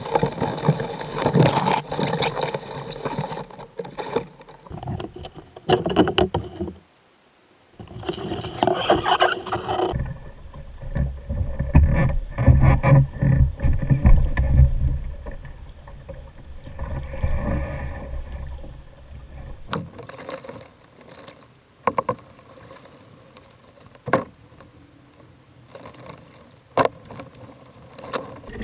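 Knocks and thumps on a canoe hull as a poler steps back into the canoe and pushes off with a setting pole, over the rush of fast, flood-high creek water. The heaviest thumping comes near the middle; later come single sharp knocks of the pole against the canoe.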